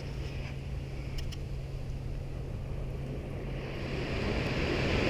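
Steady wind rumble on the microphone with the wash of beach surf, swelling near the end. Two faint clicks come about a second in.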